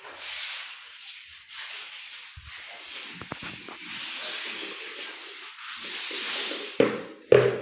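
Broom sweeping dust across a floor, a continuous scratchy brushing that swells and fades with the strokes. A brief louder pitched sound cuts in near the end.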